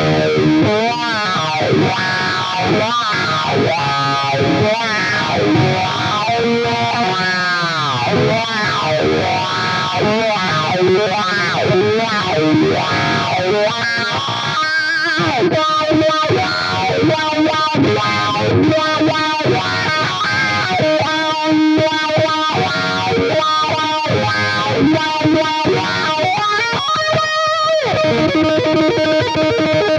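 Distorted electric guitar lead: an ESP LTD KH602 with EMG pickups played through Helix Native's Tube Screamer-style drive and Cali Rectifier amp model, with a throaty wah swept by automation and a digital delay. Fast runs and bends come with repeated wah sweeps, and a long held note near the end.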